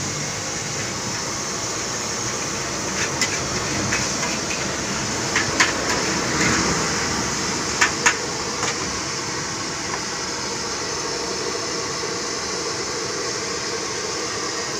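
Gas burner running steadily under a wok of fried rice, with a metal ladle clanking against the wok several times between about three and nine seconds in.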